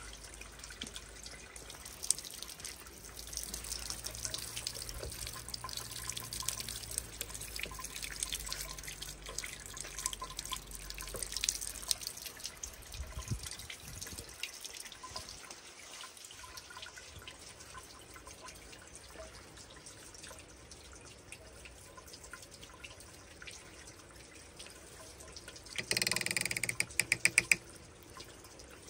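Water running, splashing and dripping through a homemade PVC flotation-separation rig for gold concentrates, with a brief louder rattling burst about two seconds before the end.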